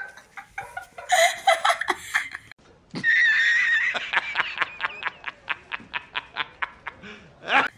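Young women giggling, then about three seconds in a man's loud laugh from an inserted film clip: a held opening followed by a fast, even run of staccato 'ha-ha-ha' bursts.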